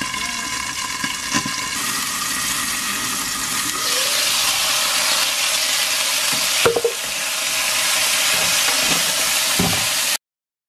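Chicken pieces frying in hot oil in a wok, a steady sizzle that gets louder about four seconds in, with a single knock about two-thirds of the way through. The sound cuts off abruptly just before the end.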